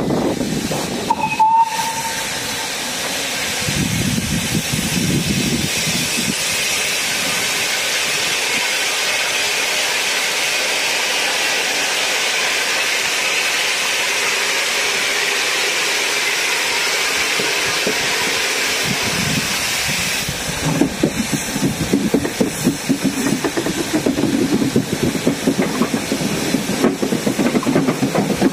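Steam tank locomotive hissing steadily with escaping steam after a brief whistle note near the start. About twenty seconds in, its exhaust beats and the train's running noise take over in a quick, uneven rhythm as it works along the line.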